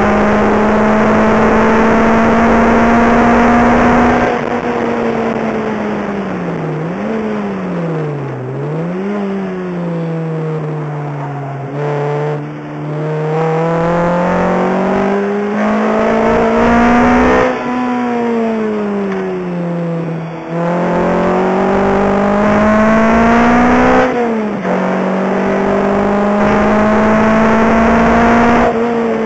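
Lotus Exige engine heard from inside the cabin on a track lap: it pulls hard with the revs climbing, lifts off about four seconds in, and the revs dip and jump twice in quick succession as it gears down for a corner. It then climbs again, eases off, pulls hard once more with one upshift about two-thirds of the way through, and lifts near the end.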